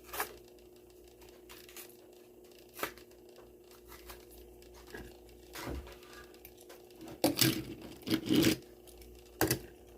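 A Hot Wheels blister pack being torn open: cardboard tearing and plastic crinkling in a few short, scattered bursts, loudest in a run from about seven to eight and a half seconds in.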